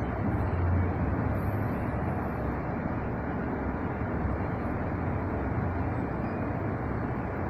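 Steady background rumble and hiss with no distinct events, heaviest in the low end.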